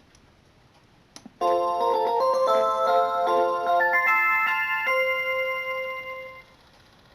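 A clock's built-in electronic melody chime: a click, then a short multi-note tune with chords for about five seconds that fades out.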